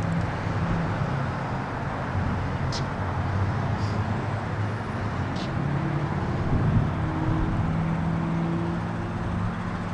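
Steady vehicle and traffic noise with a low engine hum that grows clearer in the second half, and a few faint clicks.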